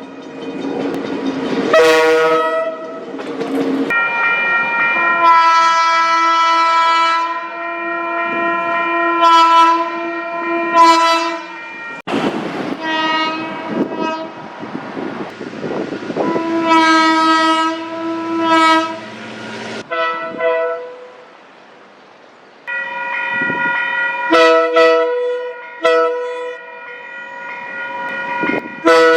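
Multi-chime train air horns sounding a string of long and short blasts, each a chord of several tones at once. Different horns follow one another with abrupt cuts.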